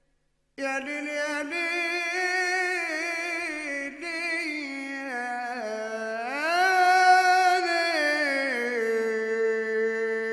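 Solo unaccompanied voice singing a slow, ornamented Arabic melody in the style of an Egyptian mawwal, entering about half a second in and stepping between held notes. It climbs and swells about six seconds in, then settles onto a long held note.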